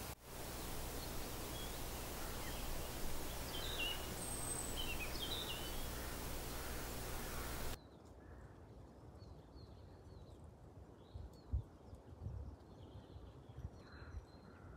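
Woodland ambience: a steady outdoor hiss with small birds chirping now and then. About eight seconds in it cuts to a quieter stretch with faint birdsong and a few soft low knocks.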